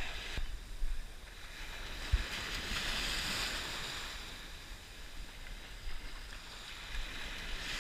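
Small surf washing up and running back over a sandy shore, with one wash swelling and fading a few seconds in. Wind rumbles on the microphone underneath.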